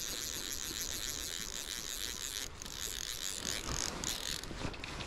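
Fly reel ratcheting with a continuous fast buzzing click as line runs on or off the spool during a fight with a trout, broken briefly about halfway through and again near the end.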